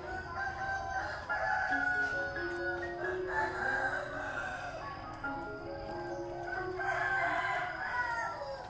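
A rooster crowing twice, about a second in and again about seven seconds in, the second crow falling away at its end, over soft background music with a simple melody.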